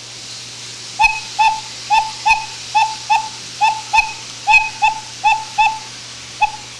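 Freshly re-papered cuckoo clock bellows being pumped over and over, its whistle pipe sounding a short, slightly falling hoot at one pitch about twice a second, each with a faint click as the bellows closes; the repaired bellows is working.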